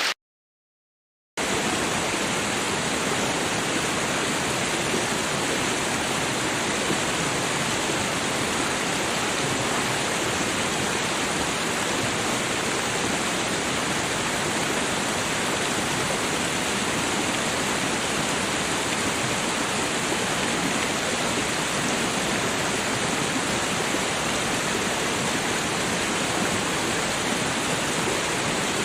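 Steady rushing of running water, an even, unbroken wash of noise. It starts about a second in, after a short stretch of dead silence.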